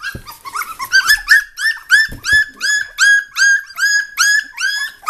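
Three-week-old Portuguese Water Dog puppies squealing and whining, loud high-pitched cries about three a second from several pups at once: hungry puppies crying to be fed.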